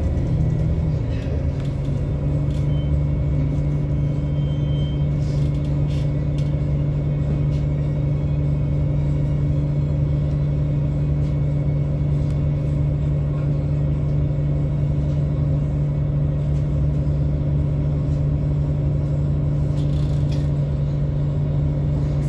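A MAN Lion's City city bus's diesel engine heard from inside the passenger cabin. Its note falls within the first second or so, then holds one steady tone with a rumble beneath.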